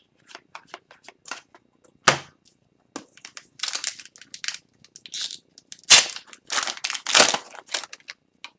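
Upper Deck hockey card packs being torn open and their wrappers crinkled, with cards handled between. Scattered sharp clicks give way to a dense run of crackling rips in the second half.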